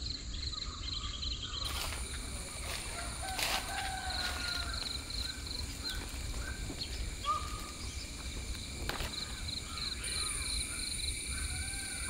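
Outdoor ambience of birds giving short chirps and whistles over a steady, rhythmic insect trill.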